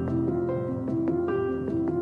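Background music: plucked notes over sustained low chords.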